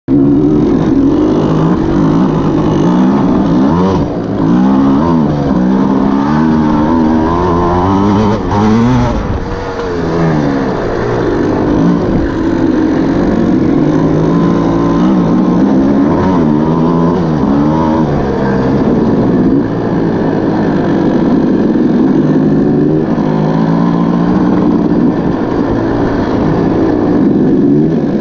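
Enduro dirt bike engine revving up and down under throttle while riding an off-road trail, its pitch climbing and dropping again and again with shifts and throttle changes.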